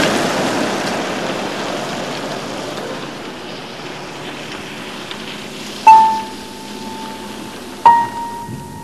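A rushing wash of noise that fades away over the first few seconds, then two single piano notes about six and eight seconds in, each struck and left ringing.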